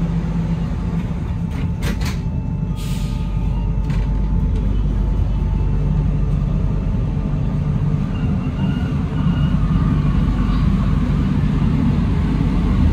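Alstom NS-93 rubber-tyred metro train: its sliding doors close with a few thumps about two seconds in, followed by a short hiss of air. The train then pulls away, its running noise and a faint motor whine building as it gathers speed.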